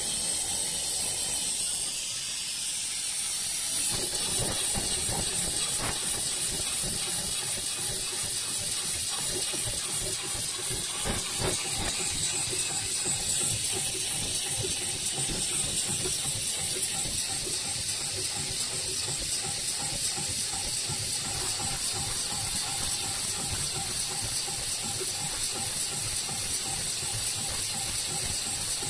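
Extra-heavy-duty 7-class industrial sewing machine running, stitching a polishing wheel: a fast, steady mechanical clatter with a steady hum that starts about four seconds in, over a continuous high hiss.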